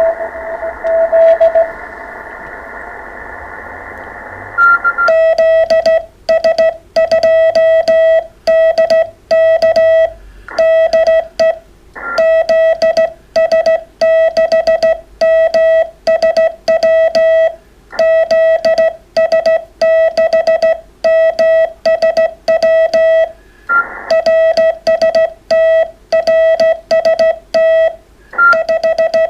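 Morse code from an amateur radio transceiver: for the first second and a half a faint received CW signal in the receiver's hiss, then hiss alone, then from about five seconds in a loud, fast-keyed tone, the rig's sidetone as Morse is sent, in rapid bursts with short pauses between groups.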